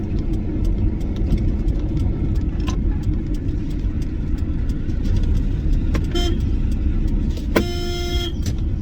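Steady low rumble of a car driving in traffic, with a car horn honking once, briefly, near the end.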